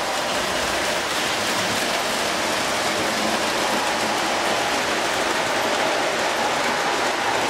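O gauge three-rail model passenger train rolling along the track: its metal wheels and running gear make a steady rushing noise with no breaks.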